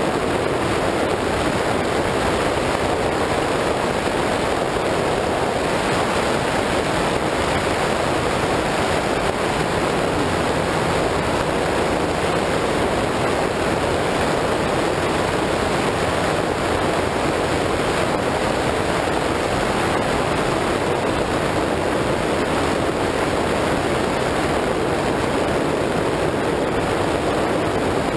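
Offshore race boat running at speed, heard on board: wind, water and engine noise blended into one steady, loud rush with no distinct engine note.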